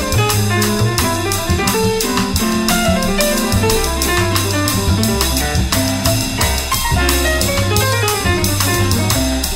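Instrumental jazz passage with no singing: piano notes over a walking double bass and a steady drum-kit beat.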